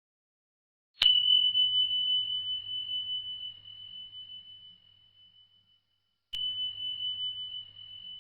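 Countdown timer's time's-up alert: a high, pure bell-like ding struck about a second in and again a little over five seconds later, each ringing out and slowly fading.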